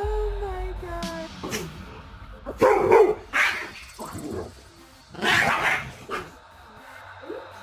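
A dog barking, with two loud barks about two and a half seconds apart and a short whine at the start.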